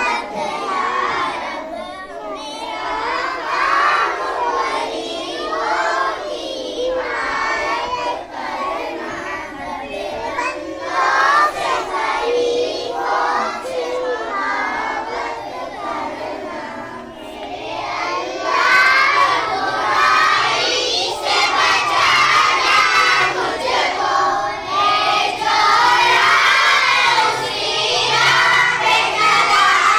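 Many young children's voices raised together as a loud group, singing and calling out at once, louder from a little past the middle.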